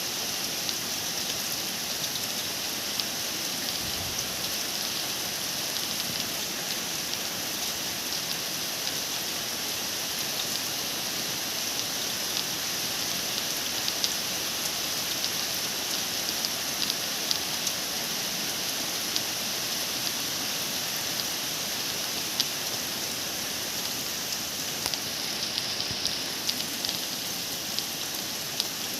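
Steady rain falling, an even hiss with scattered sharp ticks of drops striking nearby surfaces.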